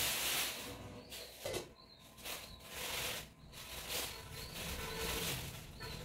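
Thin plastic packaging rustling and crinkling as it is handled and pulled off a new pot, in several bursts with short pauses between them.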